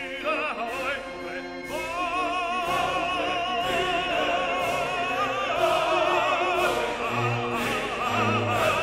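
Background music: operatic singing, a voice holding long notes with wide vibrato over orchestral accompaniment.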